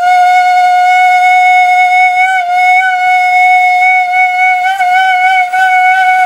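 Danso, a Korean vertical notched flute, sounding one long steady note with slight wavers in pitch, held as a five-second long-tone breath exercise.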